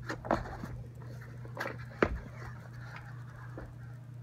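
Cardboard boxes being handled and a box lid opened, with rustling of the packaging and a few sharp knocks of cardboard, the loudest about two seconds in.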